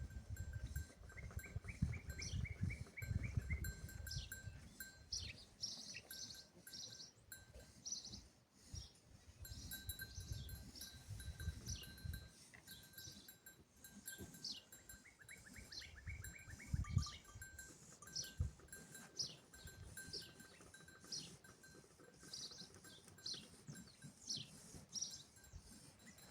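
Farmyard sounds: small livestock bells clinking, with many short high chirps and two rapid trills. Low rumbles and thumps come mostly in the first half.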